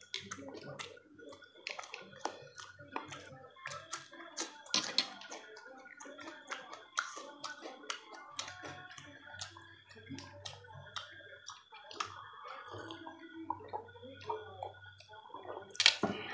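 People eating chicken chowmein and fried egg with their hands: chewing and mouth sounds with many short, sharp clicks, a few louder ones near the end.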